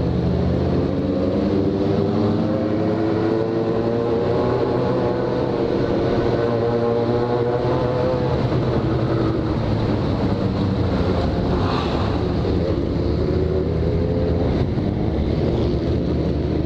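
Yamaha XJ6's inline-four engine running as the bike rides along at low speed, its pitch slowly rising and falling with the throttle.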